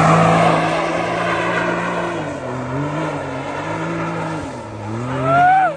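Off-road vehicle's engine pulling under load at fairly steady revs, with a rushing noise over it, then revving up hard twice near the end.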